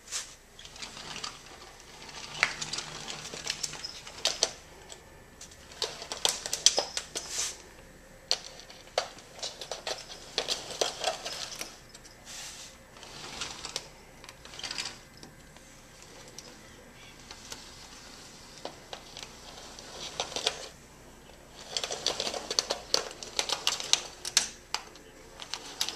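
A cat's claws and paws scrabbling and tapping at a sliding glass door and its metal frame: bursts of rapid clicking lasting a few seconds each, with quieter pauses between.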